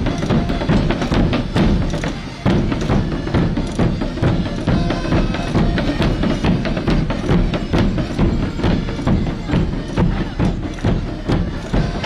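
Traditional Portuguese bombos, large rope-tensioned bass drums, and smaller drums beaten together in a fast, steady rhythm, with a brief break a little over two seconds in.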